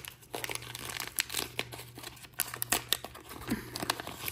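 Small crimp-sealed, foil-lined paper wrapper being worked open with the fingers, crinkling and tearing in short, irregular crackles.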